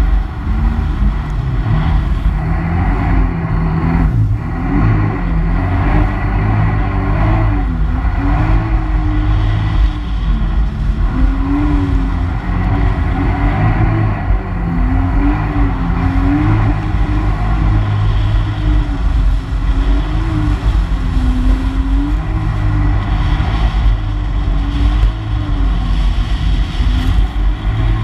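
Personal watercraft engine running at speed, its pitch rising and falling again and again with the throttle, over a steady rush of water and wind.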